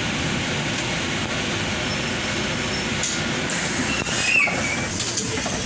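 Inside a moving bus: steady engine and road noise. About four seconds in there is a short wavering squeal with a few rattles and knocks.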